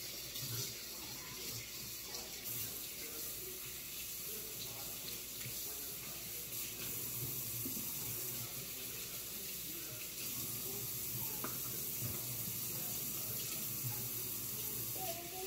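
Water running steadily from a kitchen tap into a sink.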